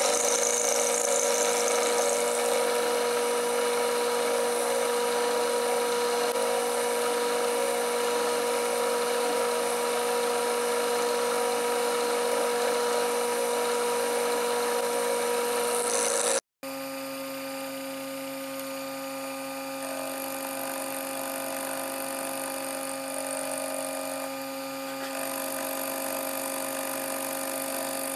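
Sherline mini mill's spindle running steadily while an end mill cuts a step into a steel block: a steady whine over the hiss of cutting. About halfway through it drops out for an instant and comes back quieter, with a slightly different pitch.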